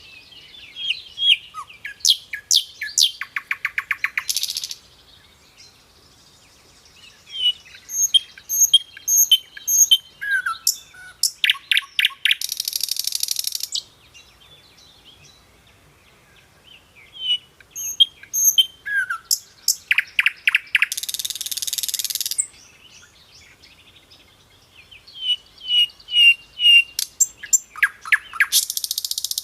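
Sikatan londo flycatcher singing in loud, energetic bouts. Each bout is a quick run of high chirps and whistled notes ending in a harsh buzzing trill, repeated four times with short pauses.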